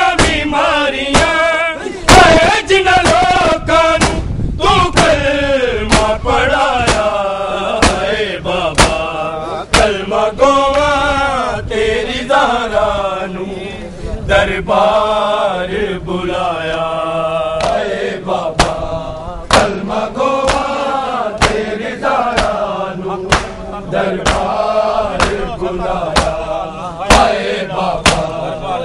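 Male voices chanting a noha, a Shia lament, in a wavering melodic line. Sharp slaps of matam, chest-beating by the crowd, keep time throughout.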